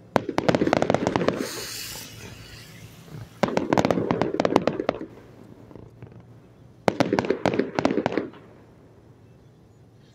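Fireworks going off in three volleys of rapid bangs and crackles, about three and a half seconds apart, each fading out before the next. A brief high hiss follows the first volley.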